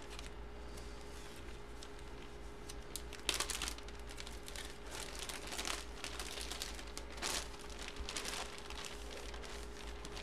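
Clear plastic bag crinkling and rustling in irregular bursts as a folded football jersey is handled and pulled out of it.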